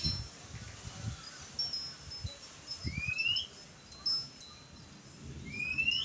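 Oriental magpie-robin singing: clear whistled notes, including two rising whistles about two and a half seconds apart, with fainter high thin notes between them. Low thumps sound under the song near the start and about three seconds in.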